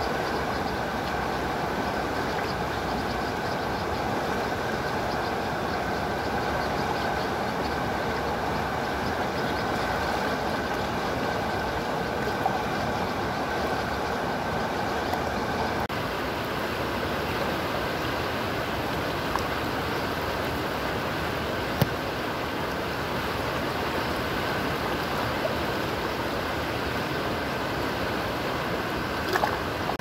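River water rushing steadily over rocks and shallow rapids, with a few brief clicks scattered through.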